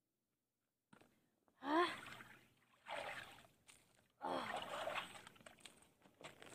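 A woman's wordless gasps and breathy exclamations: a sharp, rising gasp about a second and a half in, then two more breathy bursts.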